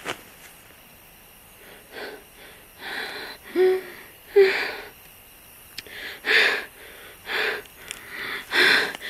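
A woman breathing hard as she runs: heavy panting breaths about once a second, several with a short voiced gasp, starting after a quieter first two seconds.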